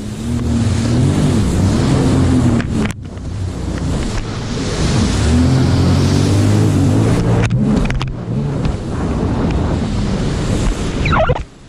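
Sea-Doo Spark Trixx personal watercraft's three-cylinder Rotax engine running under throttle, its pitch rising and falling as the hull crosses wakes. Water rushes and sprays and wind buffets the microphone throughout. The sound dips out briefly twice, about three seconds in and again past seven seconds.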